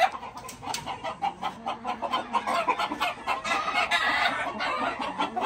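Gamecocks clucking, many short calls overlapping one another.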